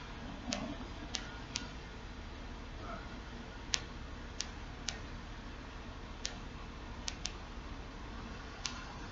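About ten sharp, short clicks at irregular spacing, over a steady low hum.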